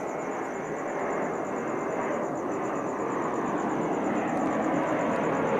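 DHL cargo jet flying overhead at night, its steady engine noise growing gradually louder as it approaches. Crickets chirp in fast high-pitched pulses underneath.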